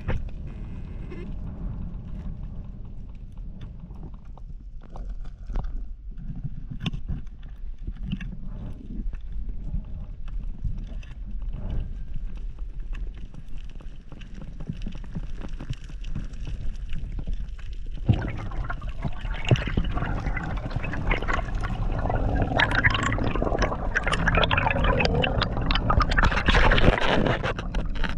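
Water heard underwater: a low rumble with scattered faint clicks, then about two-thirds of the way in a sudden, louder stretch of bubbling and gurgling water that builds toward the end.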